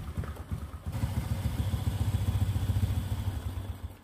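Honda Supra X 125's single-cylinder four-stroke engine running at a steady idle with a quick, even pulse, with engine flush mixed into the old oil to loosen sludge before the drain. It is switched off at the very end.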